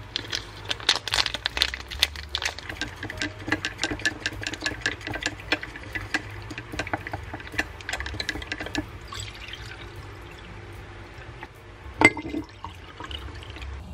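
Wooden chopsticks stirring soup powder into hot water in a glass measuring cup, clinking rapidly against the glass for about nine seconds. About twelve seconds in there is one louder clink of glass.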